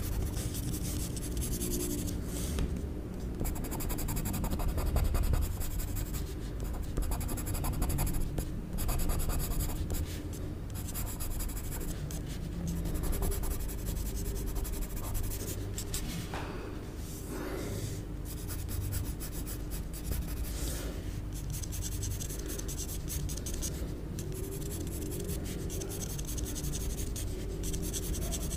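Pencil scratching on paper while sketching lines, with a few brief pauses between strokes.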